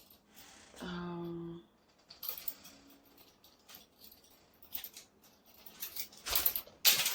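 Small metallic clicks and light rattling of earrings being handled and put on, louder near the end. A short hummed voice sound comes about a second in.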